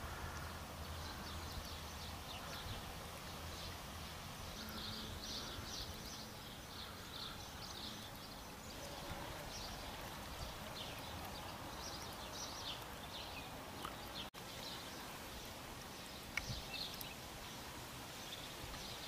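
Outdoor ambience with small birds giving many short, irregular high chirps. A low steady hum runs under it for the first few seconds, and the sound drops out for an instant a little past halfway.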